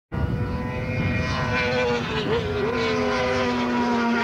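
Racing motorcycle engines running at high revs as the bikes pass, a steady pitch with a brief wobble about halfway through and a slight fall after.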